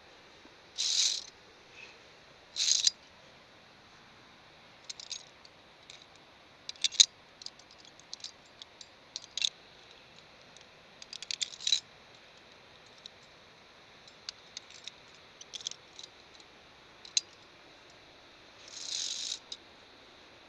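Via ferrata climbing gear clinking and rattling: metal carabiners knocking and sliding on the steel safety cable in scattered sharp clicks, with a few short scrapes about a second in, near three seconds and near the end.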